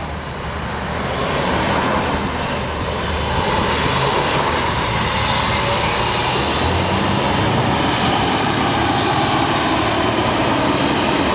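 Scania R620's V8 diesel pulling hard under load on a hill climb with a full trailer behind it. A steady, heavy engine drone that builds over the first second or two, then holds.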